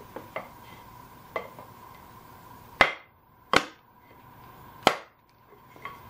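Wooden block knocking against the cast transmission housing of a BCS 725 two-wheel tractor to persuade its stuck rear cover loose: a few light taps, then three hard knocks spread over about two seconds starting nearly three seconds in, and one last light tap near the end.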